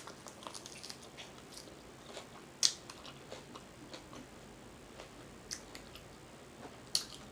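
Close mouth sounds of eating chicken wings: faint chewing with scattered small wet clicks and smacks, and three sharper smacks spread through it.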